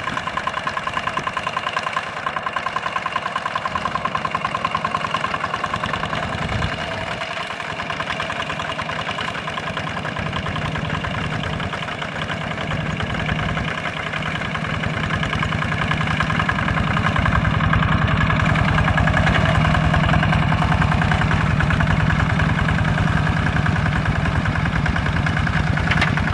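Single-cylinder Kubota diesel engine of a two-wheel walking tractor chugging steadily as it drives its steel cage wheels through the paddy mud. It grows louder about halfway through as the tractor comes close.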